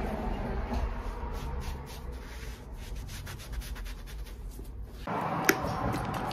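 A small bench-mounted wheel motor hums while a boot's new rubber Vibram 430 sole is pressed against the spinning wheel, rubbing and sanding it. About five seconds in the sound cuts off abruptly, giving way to a brighter scrubbing with one sharp click.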